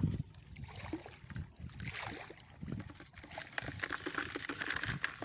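Shallow sea water splashing and trickling as a wading fisherman moves through it and handles a hand net with his hands in the water: a run of small, irregular splashes and drips.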